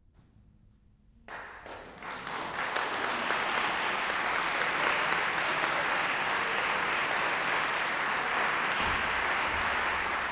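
A hush, then an audience starts applauding about a second in, building quickly to steady, dense clapping.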